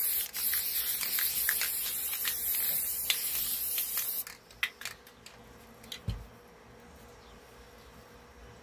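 Aerosol spray can spraying in one long, steady hiss that stops about four seconds in, followed by a few light clicks and a dull thump.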